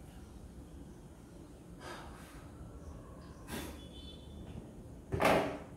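A man breathing in a pause between sentences: soft breaths about two and three and a half seconds in, and a louder, sharp intake of breath near the end.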